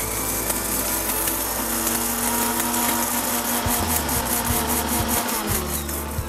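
Electric mixer grinder running, coarsely grinding roasted dal and dried red chillies in its steel jar: a steady, harsh grinding noise that dies away near the end.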